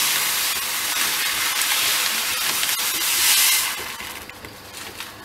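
Crushed wheat malt pouring out of a plastic bag into a pot of mash water: a steady rushing hiss that tapers off about four seconds in as the bag empties.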